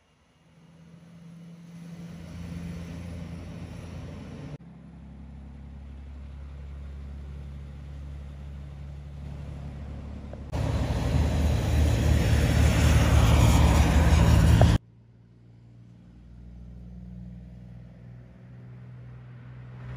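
Heavy diesel tipper trucks running past one after another, each engine a low steady drone. The sound changes abruptly several times, and is loudest for about four seconds past the middle, where a truck and trailer rolls close by with heavy engine and tyre noise.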